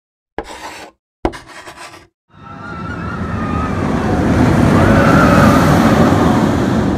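Intro sound effects: two short, sharp noises near the start, then a rushing pass-by whoosh that builds from about two seconds in and swells to its loudest near the end, as the animated coaster car slides in.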